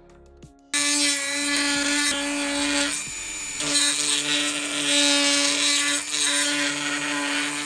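Handheld rotary tool with a grinding-stone bit switching on about three-quarters of a second in and running with a steady high whine and rasp as it grinds at black plastic. The whine drops out briefly about three seconds in, then comes back.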